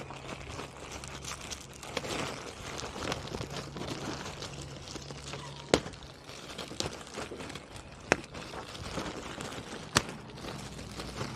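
Air filter and plastic airbox parts being handled and fitted: continuous rustling and scraping, with three sharp clicks or knocks about six, eight and ten seconds in.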